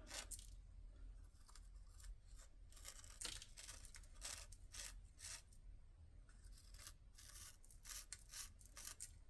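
Faint, irregular scraping and crinkling as the contents of a 6-inch canister firework shell are dug and pulled out of its casing, a series of short rasping strokes.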